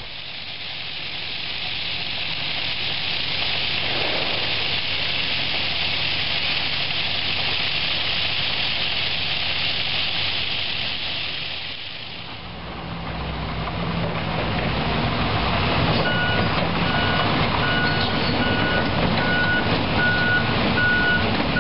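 A steady hiss of gravel pouring off a conveyor onto the beach; then, about halfway through, a heavy diesel machine running, with its backup alarm beeping about once a second in the last third.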